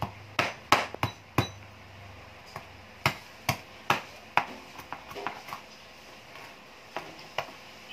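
Kitchen knife chopping cooked chicken on a plastic cutting board: a quick, uneven run of sharp knocks through the first half, then lighter, sparser chops.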